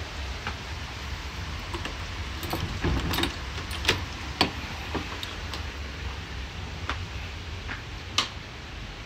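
Keys jangling and a key turning in a door's knob lock, with a run of sharp metallic clicks from the lock and latch. A single sharp click about eight seconds in, from a wall light switch, over a steady low background rumble.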